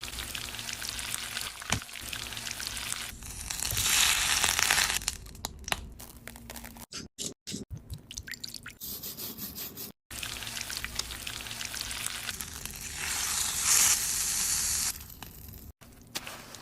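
Food frying in a pan: a steady crackling sizzle with small clicks and knocks, swelling twice into a loud hiss for a second or two.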